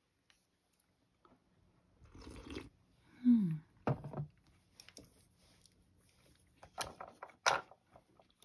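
A diner sipping miso soup from a bowl, then a short falling "mm" about three seconds in, and the bowl set down on the table with a knock about four seconds in. Light clicks of chopsticks and tableware follow.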